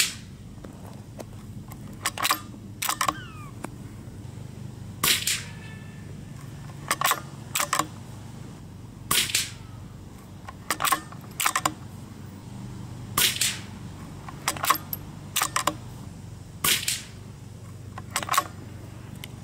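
A .22 LR rimfire rifle, the Weihrauch HW66P, firing a string of sharp cracks with a second or two between them.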